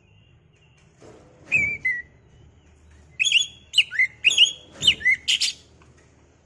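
Oriental magpie-robin (kacer) singing: a short falling whistle about a second and a half in, then about two seconds of rapid, varied whistled notes.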